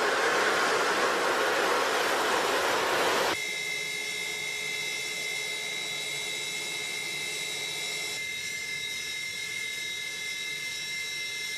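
Fighter jet's turbofan engines running on the ground. A loud rushing roar gives way abruptly, about three seconds in, to a quieter steady turbine whine with several high sustained tones.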